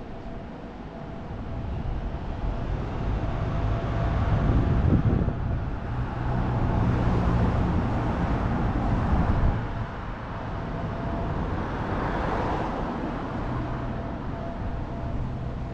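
Street traffic: a motor vehicle's engine grows louder as it passes close, then drops away about nine and a half seconds in, followed by a second swell of traffic noise.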